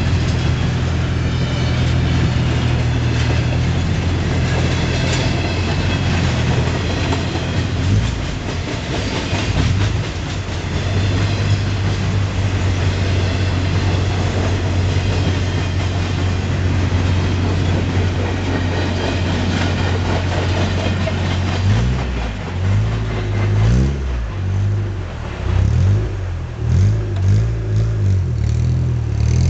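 Freight train cars rolling past, a steady rumble and wheel-on-rail noise. About three-quarters of the way through, the steady rumble gives way to an uneven, pulsing low sound as the last cars clear.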